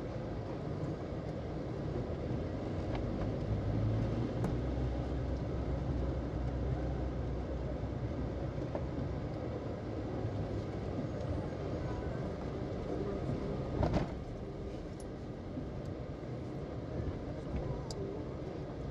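Car driving: a steady low rumble of engine and road noise, with a single sharp knock about fourteen seconds in.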